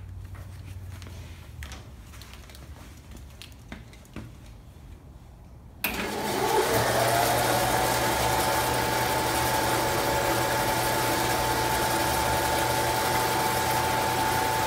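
Faint handling clicks as the power cord is plugged in. About six seconds in, the belt-driven Harbor Freight 14-inch bandsaw is switched on for its first start-up after assembly: the motor spins up with a quick rising whine and settles into a steady running whir.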